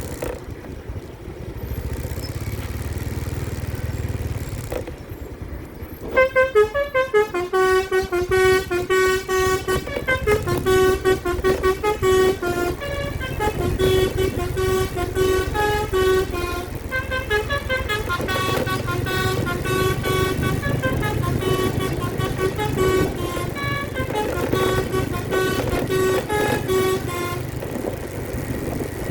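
Bus telolet horn, a bus's set of multi-tone musical horns, playing rapid melodic runs of short toots that step up and down in pitch, starting about six seconds in and stopping shortly before the end. A low vehicle engine rumble runs underneath.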